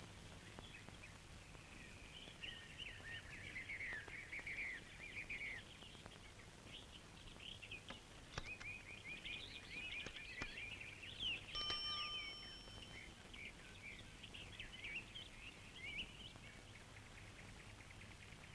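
Birds chirping in a busy, steady chorus of quick calls. About twelve seconds in, a bicycle bell rings once, briefly.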